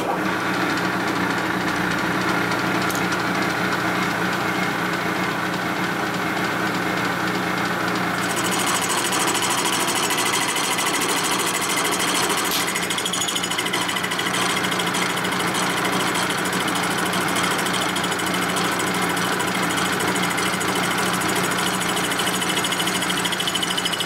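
Milling machine running steadily while its cutter recuts the aluminium combustion chamber of a Harley-Davidson panhead cylinder head. The sound turns brighter and hissier about eight seconds in.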